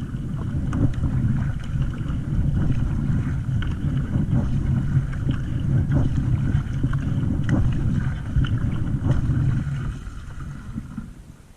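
Wind buffeting the microphone on open water as a low, steady rumble with scattered small knocks, dying down about ten seconds in.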